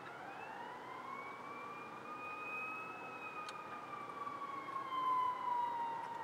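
Emergency vehicle siren wailing: one slow wail that rises in pitch over about three seconds and then falls, with a fainter second wailing tone above it.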